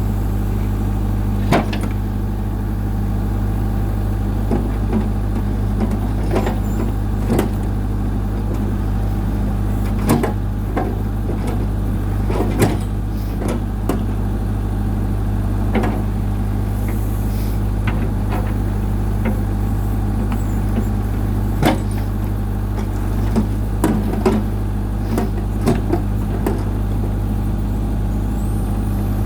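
New Holland LB75 backhoe's diesel engine running steadily, with irregular sharp knocks and clanks over it.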